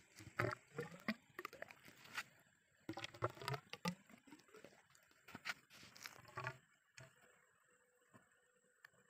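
Faint irregular knocks and rustles of a cut-open plastic can being handled while a thick liquid chemical is poured from it into a drill hole in stone. The sounds thin out after about seven seconds.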